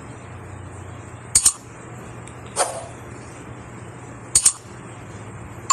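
Subscribe-button animation sound effects: a sharp double mouse click about a second and a half in, a short sweeping sound about a second later, and another double mouse click near the end, over a steady low hum and hiss.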